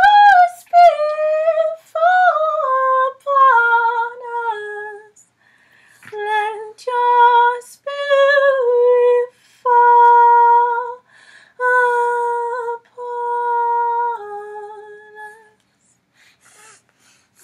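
A woman singing unaccompanied without words, a high voice in short phrases of held notes that step down in pitch. The singing stops about two seconds before the end.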